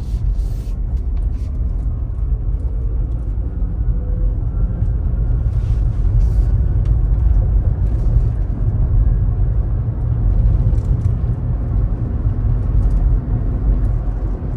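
Cabin noise of a Rivian R1T electric pickup on the move: a steady low road and tyre rumble with a faint electric drive-unit whine that rises gently in pitch a few seconds in. The gear noise the owner suspected does not sound abnormally loud.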